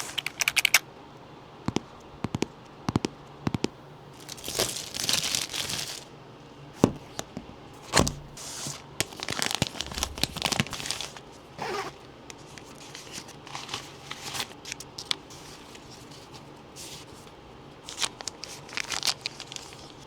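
Packaging being opened by hand: tearing and crinkling of wrapping in several spells, between scattered clicks and knocks as the box and its parts are handled.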